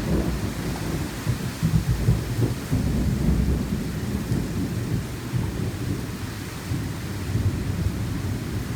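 Thunder rumbling through a heavy rainstorm, strongest in the first half and easing a little later, over a steady hiss of rain.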